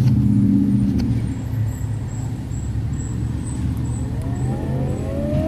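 A steady low rumble, then outdoor warning sirens, Sentry 20V2T and 10V2T, begin to wind up in the last second or so, their pitch rising.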